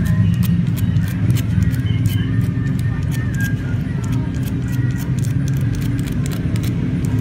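Steady low rumble of background noise, with many small sharp clicks and ticks scattered through it.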